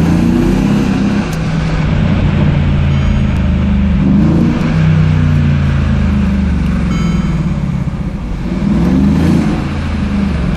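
Mercedes-AMG 5.5-litre twin-turbo V8 pulling under light acceleration, heard from inside the cabin. The engine note rises and falls about three times: near the start, about four seconds in, and about nine seconds in.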